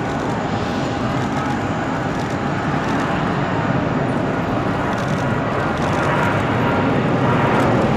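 Airbus A330 jet engines on final approach for landing: a steady rushing jet noise with a faint whine, growing slowly louder as the aircraft nears.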